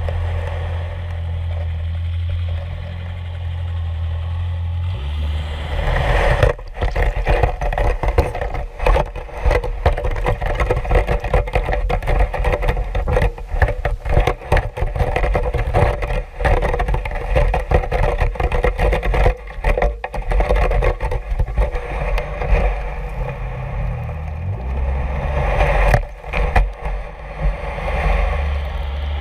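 Underwater, a low steady engine drone from the towing boat. About five seconds in, the clam dredge's metal teeth start raking through the sand: a crackling scrape full of rapid clicks and rattles that goes on with brief breaks.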